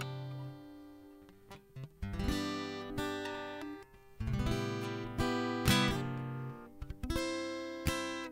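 Acoustic guitar strumming a few slow chords in an instrumental outro, each chord left to ring and fade before the next is struck.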